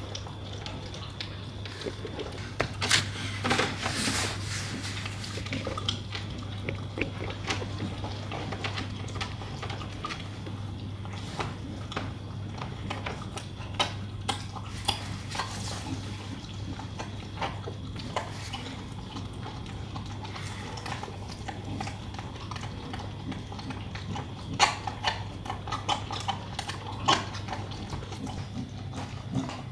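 Staffordshire bull terrier puppy licking and chewing peanut butter from a blue rubber treat toy: wet licking and mouth smacking with scattered sharp clicks, busiest a few seconds in and again near the end, over a steady low hum.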